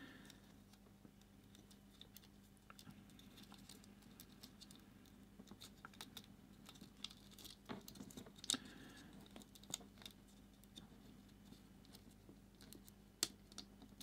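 Faint clicks and scratches from fingers handling an open plastic UK mains plug while a wire is pushed into its terminal; otherwise close to silence.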